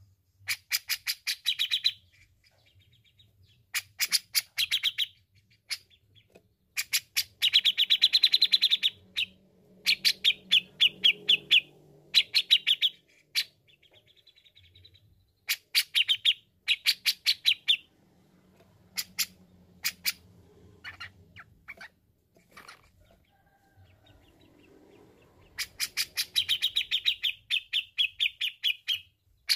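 Grey-cheeked bulbul (cucak jenggot) singing: repeated bursts of rapid, sharp chattering notes, each burst one to three seconds long, with short pauses between them.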